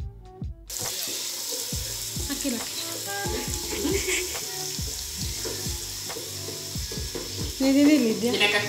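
Onions frying with a steady sizzle in a metal cooking pot, stirred with a wooden spoon. Background music with a steady beat plays under it, and a voice comes in near the end.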